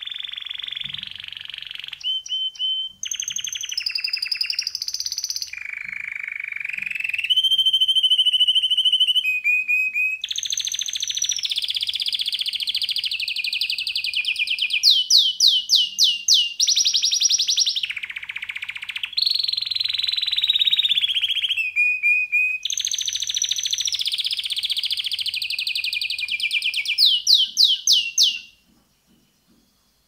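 Domestic canary singing a long, unbroken song of rapid trills, switching to a new trill every second or two, with runs of fast sweeping notes. It falls silent near the end.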